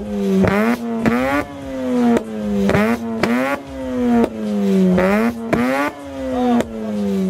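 Mazda RX-8's twin-rotor Renesis rotary engine revved repeatedly with quick throttle blips, the pitch shooting up sharply and sinking back each time, with the rotary's high, buzzy exhaust note.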